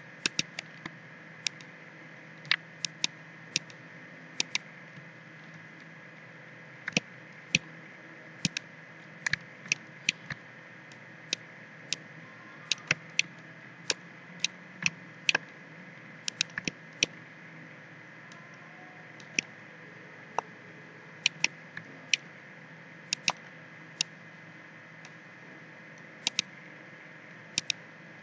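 Irregular clicks of a computer mouse and keyboard, some in quick pairs, over a steady low hum of computer and room noise.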